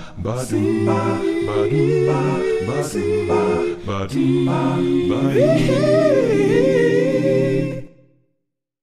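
Music: an a cappella vocal group singing held chords, with a lead voice wavering up and down over them in the second half. It cuts off suddenly about eight seconds in.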